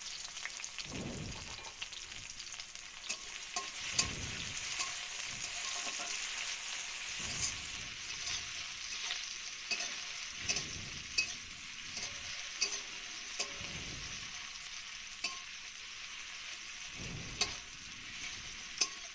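Chopped tomato sizzling in hot mustard oil in a kadai, with a steady hiss. It is stirred with a spatula, giving a scraping stroke about every three seconds and small clicks against the pan.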